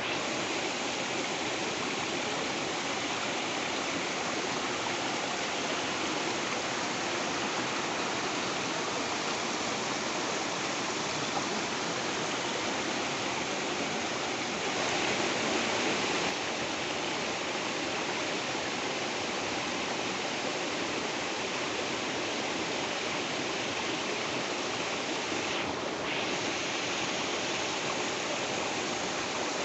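Waterfall: a steady, even rush of falling water, swelling slightly about halfway through.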